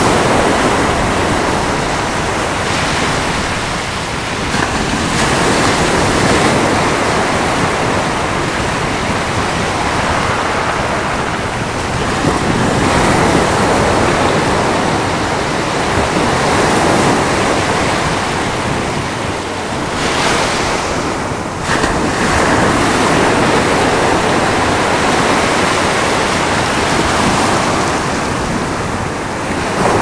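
Ocean surf breaking on a rocky shore and surging through rock channels: a continuous rushing wash that swells and eases every few seconds.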